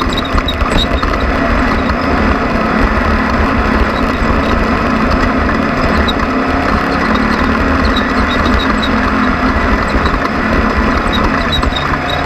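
Off-road race vehicle's engine running loud and steady under a constant rush of noise, with scattered light ticks.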